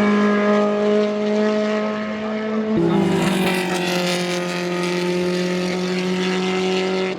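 Racing car engine running at high, steady revs; about three seconds in, the pitch drops suddenly to a lower steady note.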